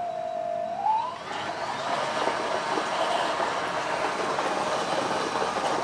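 Small electric motor driving a 3D-printed four-blade model ship propeller underwater: its whine dips and then rises about a second in as it speeds up, giving way to a steady churning of water full of air bubbles drawn in by the propeller.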